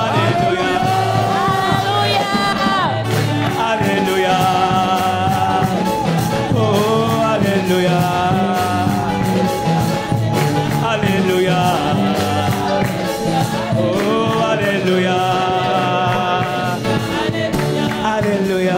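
Gospel worship song: voices singing a held, gliding melody over band accompaniment with a steady beat.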